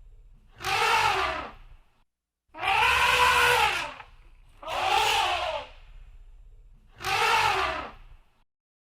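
Elephant calling four times, each call about a second long and rising then falling in pitch, with short pauses between the calls.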